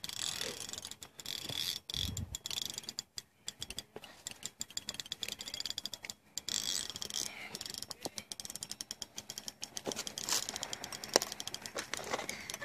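Fishing reel clicking rapidly as it is worked against a heavy fish on a bent rod, a sturgeon being fought.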